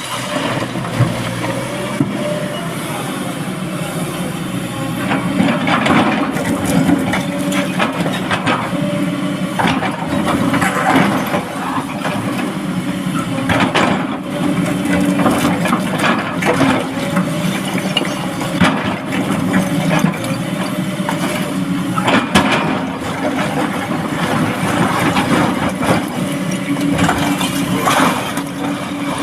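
Heavy diesel machinery running steadily while an excavator loads a dump truck with stone, with knocks and clatter of rock at irregular intervals.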